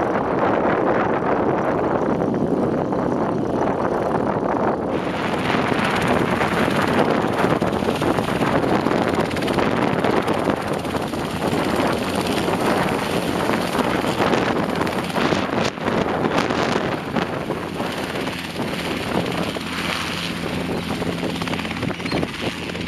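Robinson R22 helicopter running with its two-blade rotor turning, a loud steady engine-and-rotor noise that grows brighter about five seconds in and eases slightly near the end as the helicopter moves off across the field.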